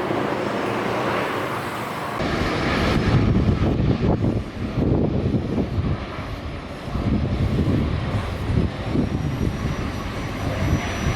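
Jet airliner engine noise: a loud, steady rumble that jumps louder about two seconds in and then surges unevenly, with a faint high whine above it.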